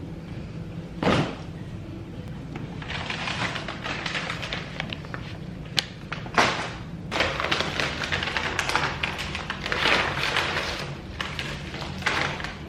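Rustling and handling noises with scattered sharp knocks and taps, the loudest about a second in and about six seconds in.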